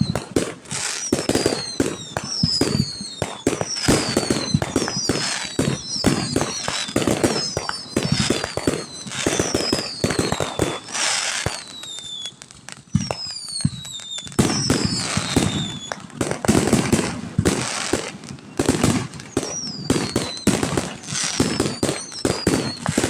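A fireworks display: a rapid run of bangs and crackling, with many short whistles falling in pitch over them and a brief lull about halfway through.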